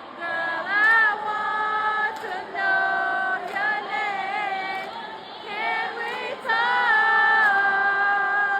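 Female singing with no instruments: long held notes, some wavering and some gliding between pitches.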